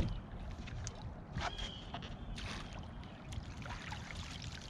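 Water sloshing around a small fishing boat, with scattered light knocks and splashes and a sharp knock right at the start.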